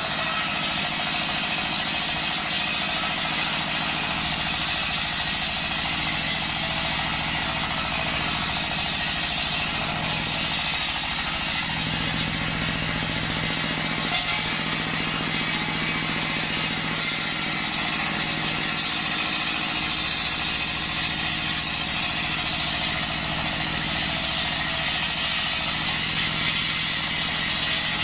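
Large belt-driven circular saw blade, run by a single-cylinder diesel engine, cutting waru (sea hibiscus) logs into planks: a steady engine drone under the loud hiss of the blade in the wood. For a few seconds near the middle the engine hum comes forward and the hiss drops, while the blade runs free between cuts.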